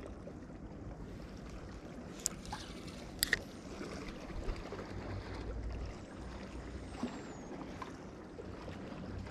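Steady low noise of water and light wind around a small fishing boat, with a few sharp clicks about two seconds and three seconds in.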